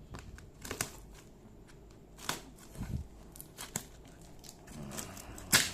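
Cardboard box and packing being opened and handled by hand: scattered rustles, crinkles and light knocks, with a sharper knock near the end.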